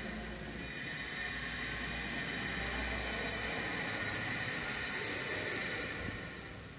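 A steady hiss of even noise, strongest in the upper range, that fades away near the end.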